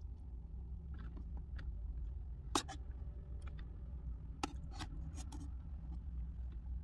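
A clear urethane window sheet flapping in the wind over a low, steady rumble, with a few sharp clicks and crackles. The loudest comes about two and a half seconds in, and a cluster follows around four and a half to five seconds.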